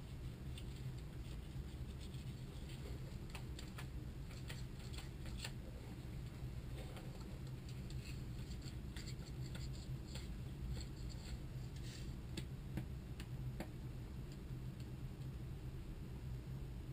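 Faint, scattered clicks and light metal taps as Kanzaki KM2P1 gearbox parts, a bearing and a gear shaft with its gears, are handled and turned over in the hands. A steady low hum runs underneath.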